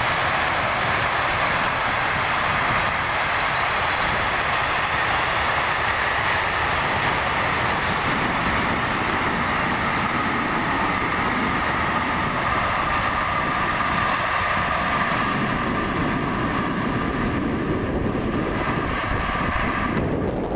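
A passing train, with a loud, steady rolling noise of wheels on the rails that holds for the whole stretch. The sound changes abruptly just before the end.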